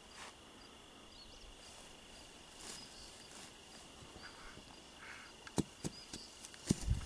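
Steady high-pitched insect trilling, with a few faint high chirps over it. Near the end come several sharp clicks and knocks from hands handling brush and soil at the trap set.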